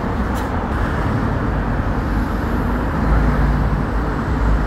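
Road traffic: cars passing close on a city street, a steady rumble of engines and tyres that swells deeper about three seconds in.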